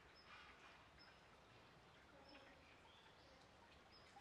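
Near silence, with a few faint, short, high bird chirps.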